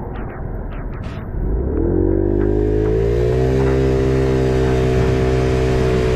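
Aprilia SXR50 scooter's small single-cylinder engine pulling away: its pitch rises for about two seconds, then holds steady as the scooter cruises, with rushing wind and road noise building alongside.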